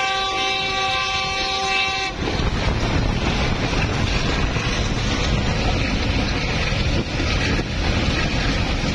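Passenger train's locomotive horn sounding one steady blast of about two seconds, followed by the steady rolling noise of the train running along the track.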